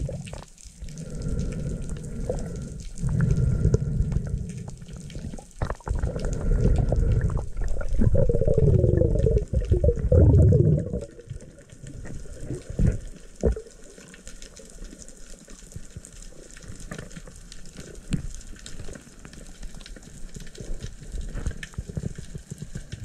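Underwater sound picked up by a camera on a spearfishing dive: water rushing and bubbling loudly for about the first ten seconds, with gurgling bubbles loudest just before it dies down. Then quieter water with scattered small clicks.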